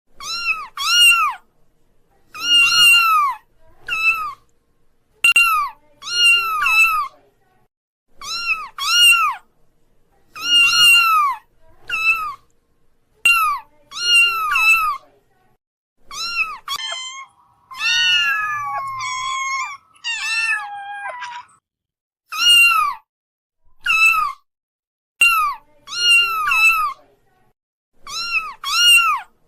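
Kittens meowing over and over: short, high-pitched meows, often two in quick succession, every second or two. Around the middle there is a longer stretch of wavering, overlapping meows.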